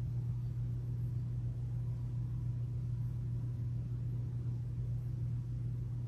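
Steady low hum with faint hiss: the sanctuary's background room tone, with no event standing out.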